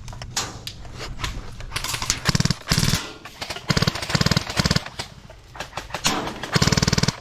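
Airsoft rifle firing in several rapid bursts of full-auto, a quick even rattle of shots, the last burst near the end the longest.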